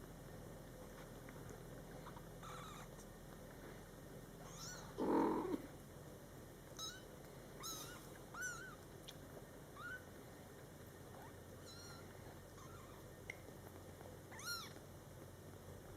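Two-week-old kitten mewing: about half a dozen short, thin, high-pitched mews spaced a second or two apart. A louder, lower burst of sound comes about five seconds in.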